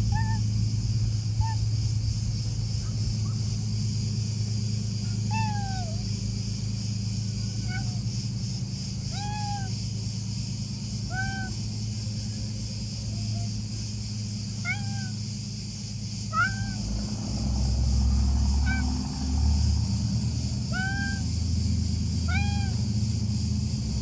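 A cat meowing: about a dozen short meows, each rising then falling in pitch, one every second or two, over a steady low hum.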